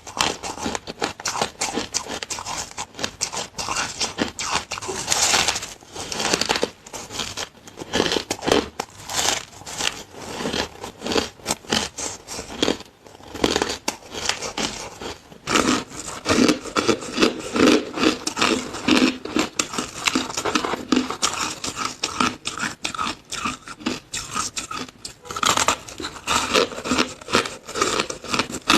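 Close-up crunching and chewing of frozen shaved ice: a fast, irregular stream of crunches, with a brief lull about 13 seconds in.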